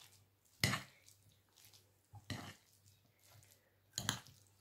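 Spoon stirring a mayonnaise-dressed rice salad in a ceramic bowl: three short strokes of the spoon through the salad and against the bowl, about a second and a half apart.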